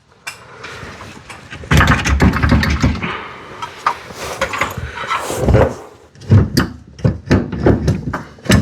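Metal knocks, clanks and scraping from a floor jack and tools being worked under a car as a heavy rear differential is supported and lowered, with a dense run of clatter and scraping about two to six seconds in.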